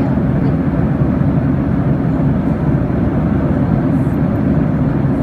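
Steady low drone of airliner cabin noise in cruise flight: engine and airflow noise heard from inside the cabin, unbroken throughout.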